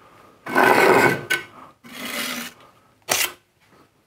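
Hand spatula scraping excess mortar off a rendered facade wall in three strokes: a long loud one about half a second in, a weaker one near two seconds, and a short sharp one about three seconds in.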